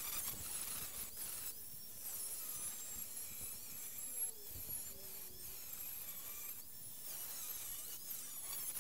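Angle grinder with a cutting disc cutting into the steel end of an old hot-water expansion tank: a high, steady whine that wavers in pitch as the disc bites, easing off briefly about three times.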